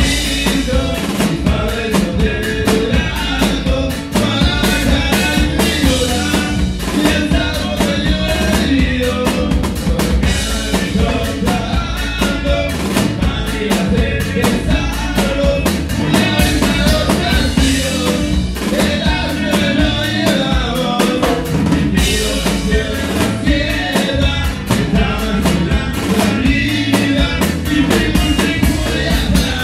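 Live band music: a drum kit keeps a steady beat under the other instruments, loud and without a break.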